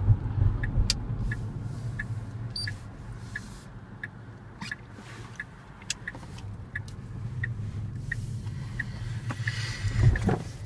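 Turn signal of a 2014 Tesla Model S ticking steadily, about three ticks a second, heard inside the cabin over low road noise. Near the end the road noise swells with a thump.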